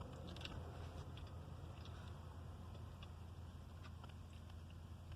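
Faint eating sounds, chewing with small irregular mouth and utensil clicks, over a steady low hum inside a car.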